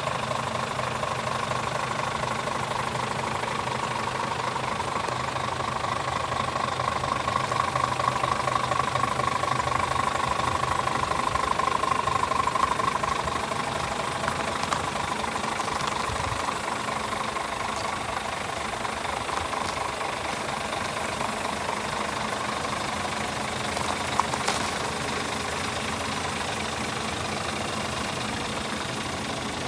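Scania G450 truck's 13-litre six-cylinder diesel idling steadily with a light diesel clatter, louder for a few seconds partway through, with a brief click later on.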